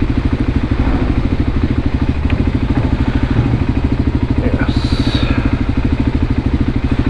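Voge 300 Rally's single-cylinder engine idling steadily, with an even, fast pulse that holds the same pitch.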